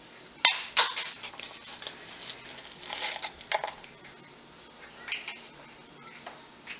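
Hand spreading shaved Parmesan over cheese-topped spaghetti in a glass baking dish: a sharp click about half a second in, then a series of short rustling scrapes and light taps at irregular intervals.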